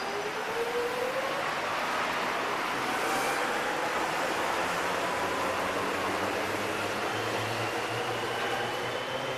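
Melbourne Metro electric suburban train accelerating: a whine climbs slowly in pitch over the steady running noise of the train.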